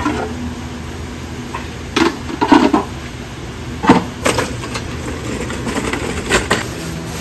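Large aluminium stockpots and their lids clanking and knocking as they are handled and set down, a handful of sharp metallic knocks, loudest around two and a half and four seconds in, over a steady low hum.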